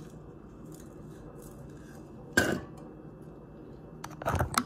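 Spoon, jar and tumbler being handled on a counter while a salt drink is measured and mixed: one sharp knock about halfway through, then a quick run of clicks and knocks near the end.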